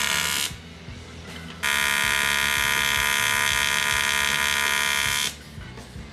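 AC TIG welding arc on aluminum from a YesWelder TIG 250P AC/DC machine, tacking aluminum angle: a steady, loud buzz made of many evenly spaced tones. One tack's arc cuts off about half a second in, and a second arc strikes about a second and a half in, runs for nearly four seconds and stops.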